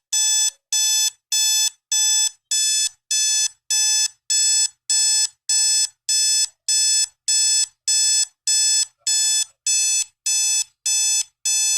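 SHARP SPC051 digital alarm clock's alarm sounding: a high electronic beep repeated at an even pace, a little under two beeps a second, each beep lasting under half a second.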